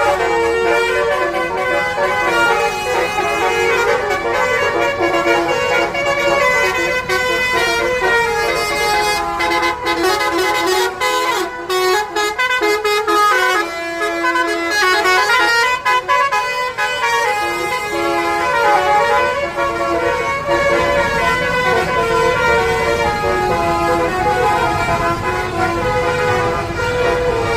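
Telolet basuri bus horn playing a tune: a long run of layered horn notes that keep changing pitch.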